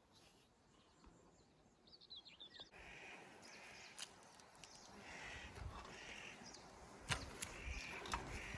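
Faint outdoor sound of a small bird calling repeatedly, with a few sharp clicks and soft thuds of footsteps on a forest trail.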